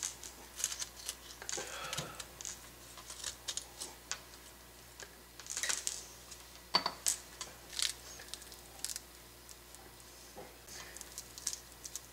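Small knife cutting into the tough rind of a whole pomegranate on a wooden cutting board: irregular small clicks, scrapes and crackles of the rind, a few louder ones about six to seven seconds in.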